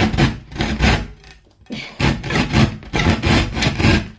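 Hand saw cutting through a wooden table top in rasping back-and-forth strokes, about three a second, with a brief pause a little after a second in, stopping at the end.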